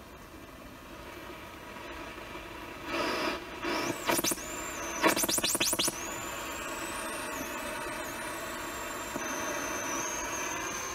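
Handheld ghost-hunting device that turns electromagnetic changes into sound: a steady electronic hum, short bursts of static about three seconds in, a quick run of chirps and sweeps around five seconds, then a thin high whistle that wavers and then holds.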